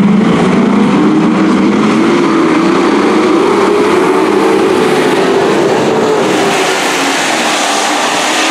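Engines of a pack of dirt track race trucks running hard around the oval, loud and continuous. The engine note climbs over the first few seconds as they accelerate, then holds and eases slightly.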